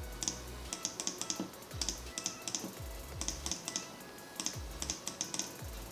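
Computer keyboard keys clicking in quick clusters of several strokes, over soft background music with a low thumping beat.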